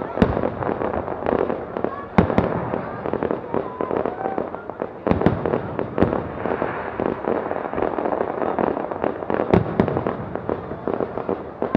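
Aerial fireworks shells bursting in a continuous display: sharp bangs come in pairs a couple of seconds apart, over dense crackling.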